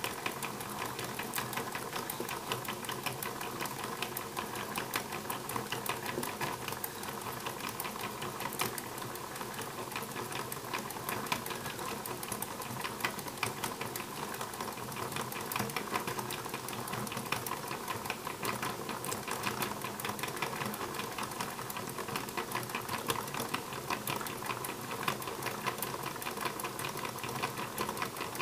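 Meccano 3,125:1 reduction gearbox turned fast by hand at its input: brass pinions meshing with large gear wheels in a steady, dense clatter of ticks with a thin steady whine. At this ratio, many turns of the input move the output shaft only a fraction of a turn.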